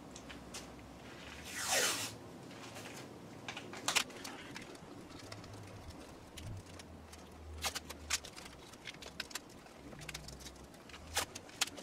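Masking tape ripped off the roll in one short rasp about two seconds in, then scattered light clicks and taps as the tape is handled and pressed onto cast iron.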